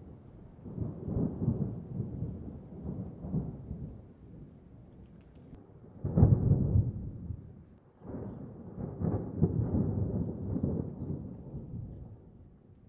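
Distant thunder: several long, low rolling rumbles, with a sharper, louder clap about six seconds in and another roll starting about two seconds later, fading out near the end.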